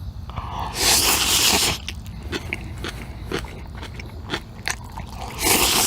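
Close-miked eating sounds of black bean noodles: two loud slurps, one about a second in and one near the end, with wet chewing and lip-smacking clicks between them.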